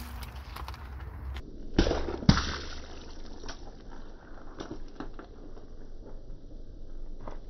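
A car tyre rolling over a lemon on asphalt and crushing it: two loud sharp cracks about two seconds in as it bursts, then a run of small wet crackles and clicks as the tyre presses through the pulp and juice.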